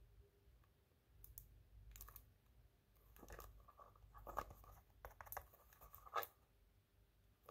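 Faint handling noise from a small plastic-wrapped cardboard box being turned over in the fingers: scattered soft scratches, crinkles and light taps, a little louder about four and six seconds in.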